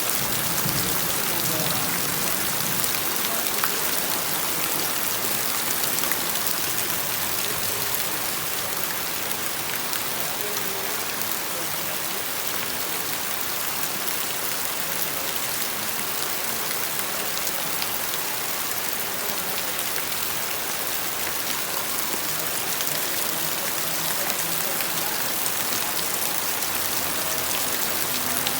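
Steady rain falling, a continuous hiss of drops on surfaces with fine individual drop ticks.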